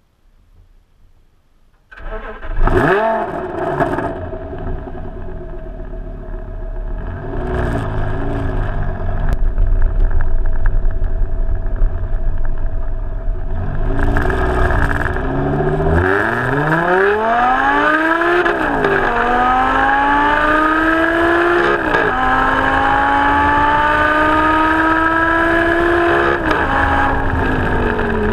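Audi R8 V10 engine cutting in suddenly about two seconds in with a quick rev, running low with a couple of small blips, then accelerating hard from about halfway: its pitch climbs through the gears with three quick drops at the upshifts.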